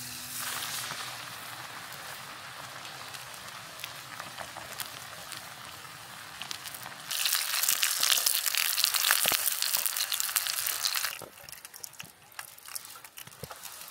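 Battered tempura deep-frying in hot oil in a small camping pot: a steady sizzling hiss with bubbling and crackles. It grows much louder about seven seconds in for some four seconds, then dies down to scattered crackles.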